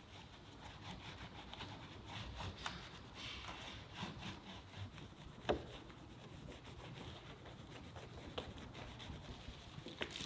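Wash mitt and soft detailing brush scrubbing soapy foam on a car's grille, badge and paintwork: faint wet rubbing with scattered small clicks, the sharpest about five and a half seconds in.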